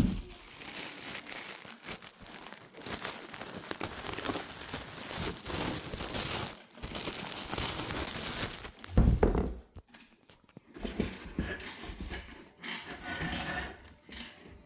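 Flat-pack furniture parts and their packaging being handled during assembly: rustling and scraping for several seconds, one heavy thump about nine seconds in as a piece is set down, then scattered light knocks.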